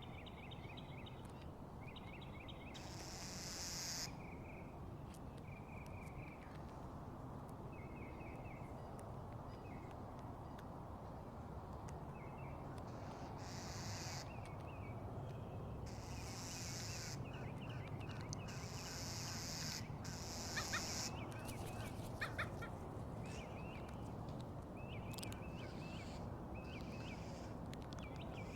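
Birds calling in short chattering bursts again and again, over a steady low background rumble.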